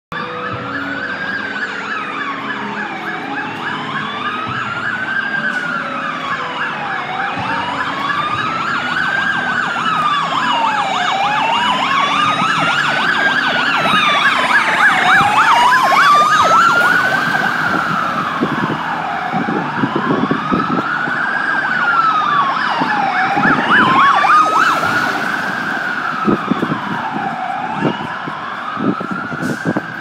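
Two fire truck sirens: one a slow wail rising and falling about every four seconds, the other a faster warble that joins in about ten seconds in. They grow louder toward the middle, then fade.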